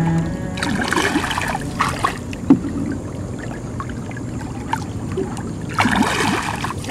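Paddle strokes through water from a small boat: two swishing pulls about five seconds apart, with small splashes and drips between them, over a low steady hum.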